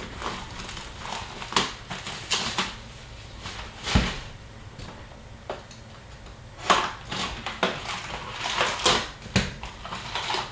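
A sealed box of hockey cards being opened by hand: wrapping and cardboard rustling and crinkling, with several short, sharp handling noises.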